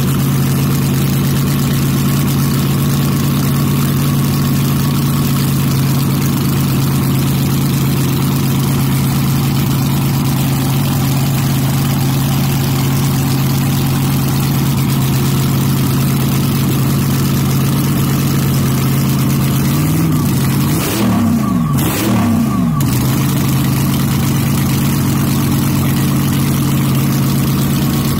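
Supercharged 283-cubic-inch small-block Chevy in an AA altered drag car, running on pump gas, idling loudly and steadily. About twenty seconds in it is revved up and down a few times in quick blips, then settles back to idle.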